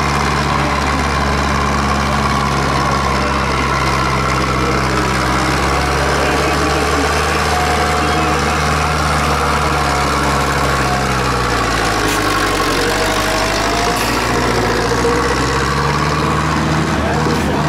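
Zetor 7245 tractor's four-cylinder diesel engine running steadily. Its speed drops about twelve seconds in and picks up again near the end.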